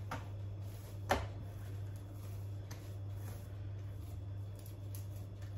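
Quiet kitchen room tone with a steady low hum, and a single sharp knock about a second in.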